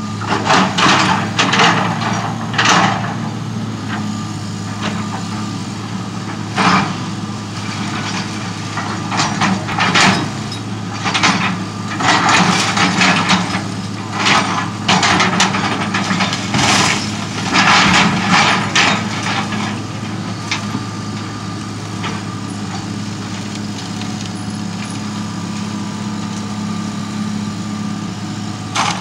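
Diesel engine of a Hitachi tracked hydraulic excavator running steadily, with repeated short bursts of clatter over the first two-thirds as the machine moves into position and swings its boom. The last third is the engine alone.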